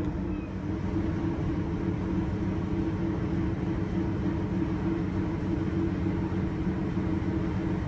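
Steady low drone of a lake freighter's machinery, with two constant low hums over a rushing background noise.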